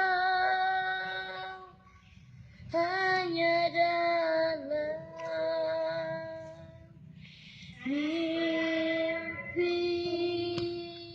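A child singing solo, unaccompanied, in three long phrases of drawn-out notes with vibrato.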